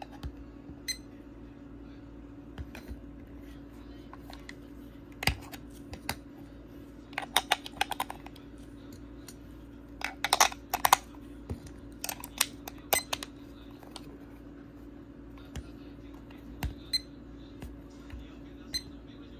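Plastic clicks and knocks from handling a small battery-powered plastic desk clock and fitting AAA batteries into its battery compartment. The clicks come in scattered ones and twos, with two busier clatters near the middle, over a steady low hum.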